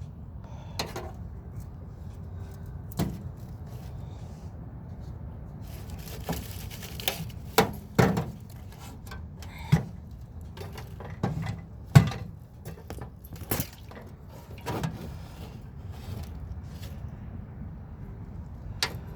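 Scattered clicks and knocks of tools and hands working on a microwave oven's metal casing, a dozen or so sharp separate taps with the loudest about two-thirds of the way through, over a low steady rumble.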